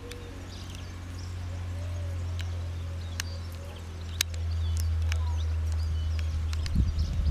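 Outdoor ambience: faint bird chirps over a steady low hum, with a few sharp clicks.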